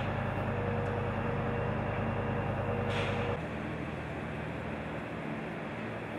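Heavy lifting-plant engine running steadily, with a low hum and a thin steady whine above it. A short hiss comes about three seconds in. Half a second later the sound drops to a quieter, steadier machinery drone.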